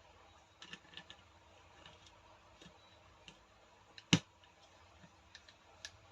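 Scattered light clicks and taps of small parts being handled during reassembly of a rotary hammer, with one sharp, much louder knock about four seconds in.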